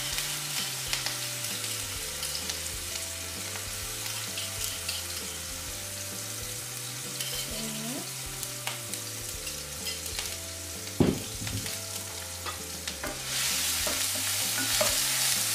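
Ground spice paste with chopped onion and bruised lemongrass sizzling as it fries in hot oil in a pan. A single sharp knock comes about eleven seconds in. The sizzle grows louder near the end as a wooden spatula starts stirring the paste.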